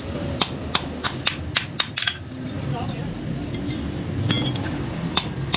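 A hammer striking iron on an anvil in forging, each blow sharp and ringing: a run of blows about three a second, a pause a little past halfway, then a few more quick blows.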